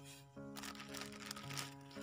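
Background music of held chords that change twice, with a crinkling, crackling noise over the middle of it.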